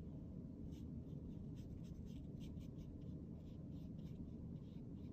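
Fine paintbrush stroking paint onto a kraft-paper envelope: short, faint, scratchy brush strokes, two or three a second.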